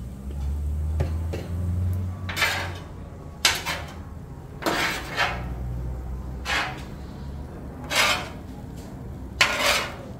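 Metal spatulas scraping and clanking against a flat-top griddle as fried rice is turned and mixed: about eight short scrapes at irregular intervals, starting about two seconds in.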